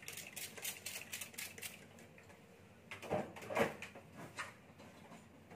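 A quick run of light clicks and taps, then a few louder knocks about three seconds in.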